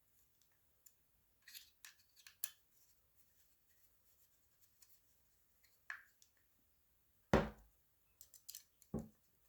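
Small clicks and scrapes of screws being tightened and checked on the M17 G3 marker's receiver, with a sharp knock about seven seconds in and another near the end.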